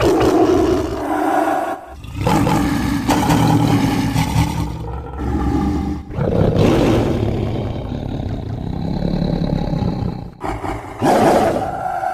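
Sound-designed dinosaur roars for the Kasai rex, a run of about four long, rough roars with short breaks between them. The last one is brief and loud.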